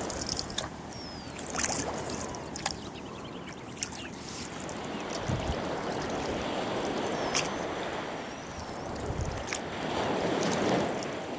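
Rowboat oars pulling through water in slow strokes, each stroke a swell of splashing and gurgling that comes about every five seconds, with a few light knocks and drips. Birds chirp in the background.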